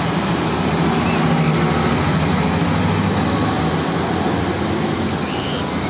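Tanker truck pulling a tank trailer driving past, its engine running steadily under a continuous wash of road and traffic noise.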